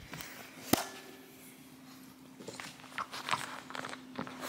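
Faint scattered taps and rustles from close handling and movement in a quiet room, with one sharp click about a second in and a faint steady hum underneath.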